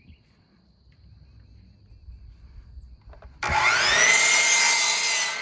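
Electric power saw starting about three and a half seconds in, its motor whine rising and then holding steady as it cuts through a wooden 2x4.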